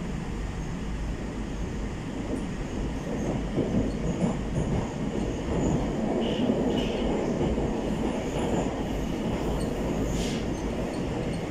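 Moscow metro 81-765/766/767 train running through a tunnel, heard from inside the car: a steady rumble of wheels on rail. Short high wheel squeals come about six and seven seconds in, and again near the end.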